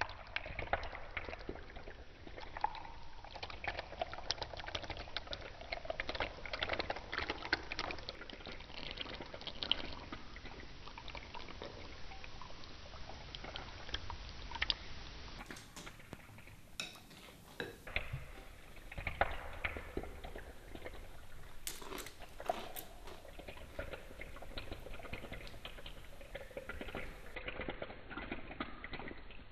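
Milk pouring into a bowl of cornflakes, splashing and crackling over the dry flakes. After about fifteen seconds the pouring gives way to scattered sharp clicks and taps.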